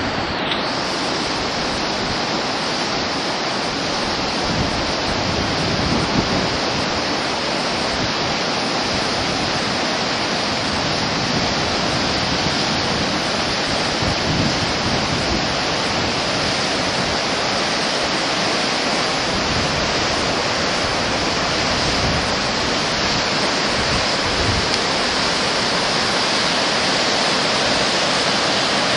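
Fast-flowing glacial river rushing over boulders: a steady, unbroken sound of running water.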